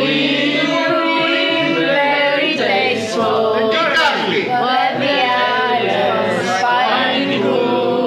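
A group of men and women singing a song together, voices held on sung lines throughout.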